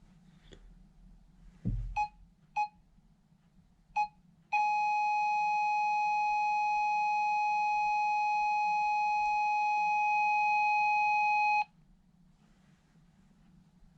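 Electronic sound-effect beeps: three short beeps, then one long steady beep at the same pitch lasting about seven seconds that cuts off suddenly. A low thump comes just before the first beep.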